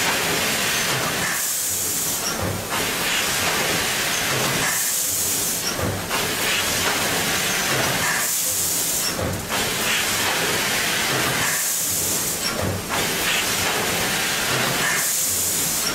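Automatic woven-bag packing machine running, with a sharp hiss of air about every three and a half seconds, five times, over a steady mechanical clatter as it fills bags in cycles.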